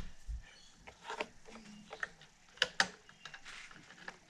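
Small plastic wiring connectors being handled and pushed back onto the pins of a Technics 1200 MK2 turntable's circuit board: a few sharp, separate clicks with light fiddling noise between them.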